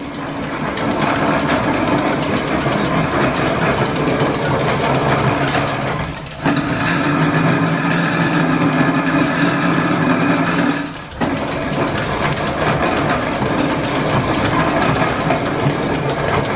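1897 belt-driven metal planer running under line-shaft power: a steady mechanical drone with several held tones from its gearing. The table reverses about every five seconds, and each reversal brings a brief dip in the sound and a short high squeak.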